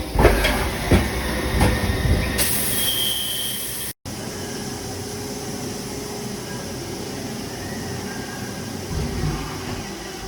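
Industrial machine noise: several metallic clunks and knocks, then a short burst of air hiss with a brief whistle in it. After an abrupt break, a steady mechanical hum.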